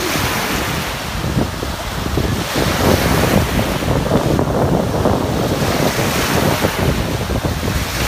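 Sea surf breaking in the shallows, with wind buffeting the microphone; the wash gets louder about three seconds in.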